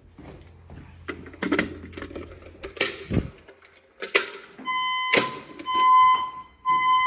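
Fire alarm evacuation speaker sounding three pulses of a steady, high alert tone, about half a second each, in the temporal-3 alarm pattern. Before that come a few seconds of scattered knocks and clicks.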